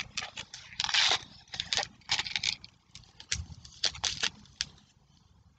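Small clear plastic container of beads being opened and handled: a quick, irregular string of light clicks and rattles from the beads and plastic, thinning out about five seconds in.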